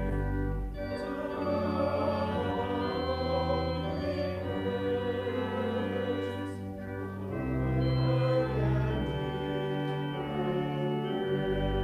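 Church organ playing sustained chords, with a congregation singing along.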